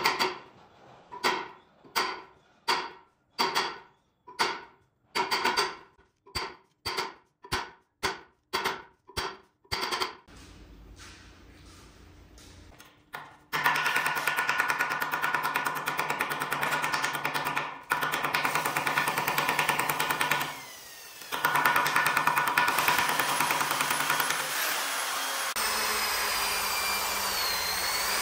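A run of ringing hammer blows on steel, about two a second for some ten seconds, each fading out. About 13 seconds in, an electric drill starts and runs steadily, spinning welding wire, with a brief dip near the end.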